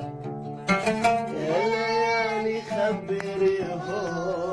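Arabic oud being plucked and strummed, with a voice singing a melody over it; a sharp strum comes in just under a second in.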